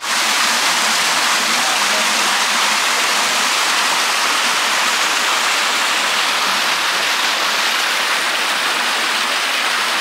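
Water pouring over rocks at a waterfall: a loud, steady rush with no break.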